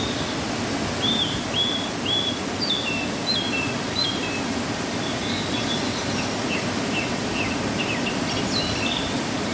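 Waterfall after rain, a steady rush of falling water. Over it a small bird chirps again and again in short, curved, high notes.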